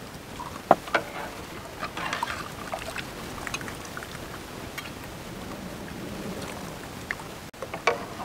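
A metal ladle clinking against a large aluminium pot and glass tumblers while liquid coconut jelly mix is ladled into them: a few sharp clinks over a faint, steady background noise. Near the end, glasses are set down with a couple of knocks on a wooden table.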